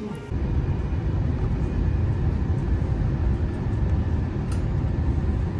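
Steady low rumble of a moving vehicle, cutting in suddenly just after the start.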